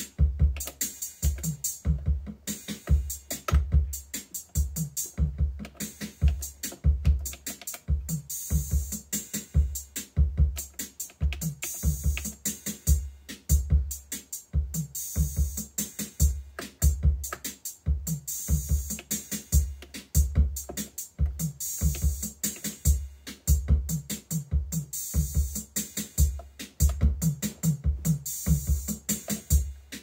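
Roland TR-606 Drumatix analog drum machine playing a steady programmed pattern. Deep bass-drum hits come about twice a second under hi-hats and cymbal.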